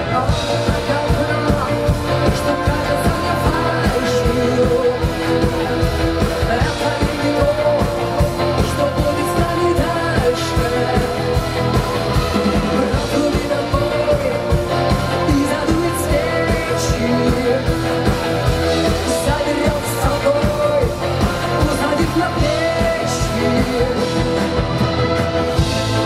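Live rock band playing through a PA: electric and bass guitars, drums, keyboards and violins, with a lead vocal singing over them.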